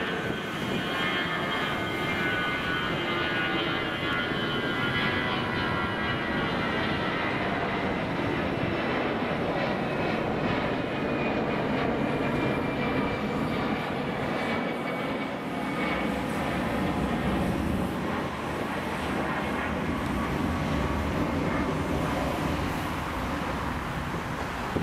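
Airbus A319 twin-jet engines climbing out after takeoff: a steady jet roar with a faint whine that slowly drops in pitch as the airliner moves away.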